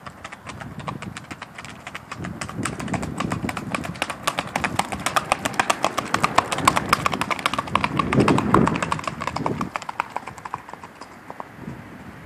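Hoofbeats of a Saddlebred–walking horse cross being ridden at a quick gait on a gravel and dirt road: a rapid, even run of sharp hoof strikes. They grow louder as the horse passes close, loudest past the middle, then fade as it moves away.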